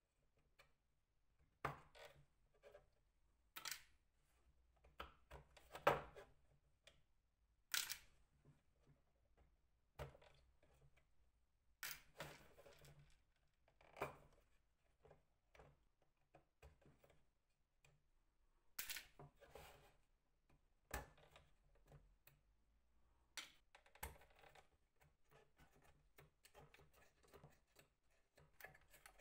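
Sparse light clicks and knocks, about a dozen at uneven intervals, with soft rustling and scraping in between: small parts and tools being handled in hand-work on a mandolin.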